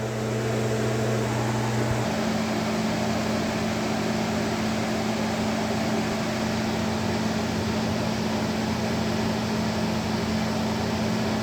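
Steady electrical hum with fan-like noise from a running household appliance; the low hum changes to a rougher rumble about two seconds in.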